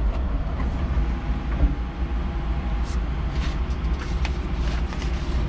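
Electric forklift driving across a concrete warehouse floor, heard from inside its cab: a steady low rumble from the drive and tyres, with a few light clicks and rattles in the second half.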